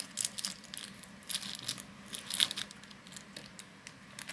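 Stretchy slime being pulled and squished by hand, giving irregular bursts of sticky crackling and tearing sounds.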